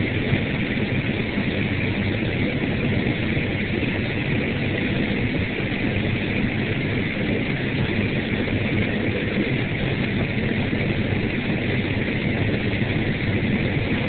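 John Deere 9760 combine running steadily while harvesting corn, heard from inside the cab as a constant low engine hum under an even mechanical noise.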